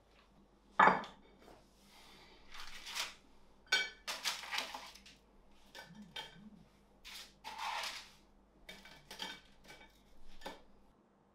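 Crisp toasted bread sticks being lifted off a paper-lined baking tray and stacked on a ceramic plate: dry scraping and light clatter of hard toast on the plate in several separate bursts. A sharp knock about a second in is the loudest sound.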